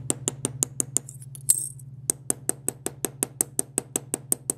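Small ball-peen hammer tapping with its round face on an aluminum tube rivet set through copper sheet on a steel bench block, mushrooming the rivet's end over. Light, quick, even taps about six a second, with one harder tap and a brief pause about a second and a half in.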